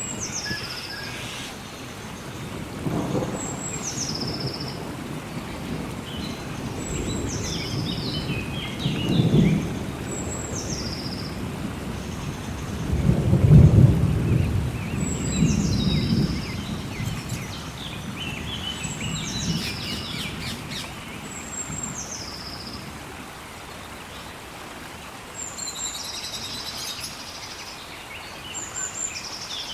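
Rainforest ambience: steady rain with rolling thunder that swells several times and is loudest about halfway through, and a bird repeating a short high call that drops in pitch every couple of seconds.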